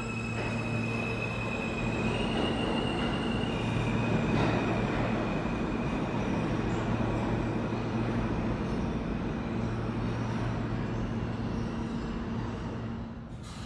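R160 subway train pulling out of the station: a steady rumble of wheels on rail with the high whine of its traction motors stepping up in pitch over the first few seconds, dying down near the end.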